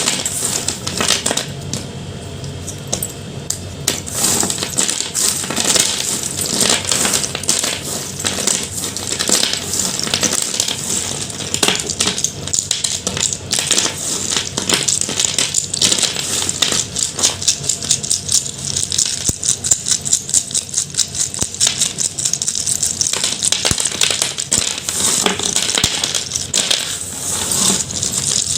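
Chalk being crushed and crumbled, a steady run of dense, crunchy crackles and snaps.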